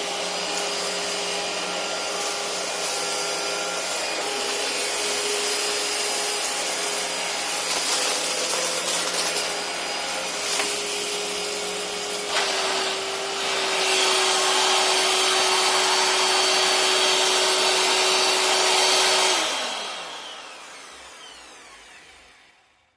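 Vacuum cleaner motor running steadily with a whine, the sound getting louder and hissier about 14 s in. About 19 s in it is switched off and spins down, its whine falling in pitch as it fades away.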